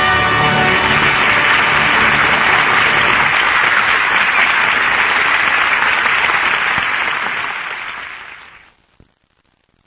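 Studio audience applauding at the end of a radio drama act, with the orchestra's closing music fading away under it at first. The applause tapers off and dies out near the end.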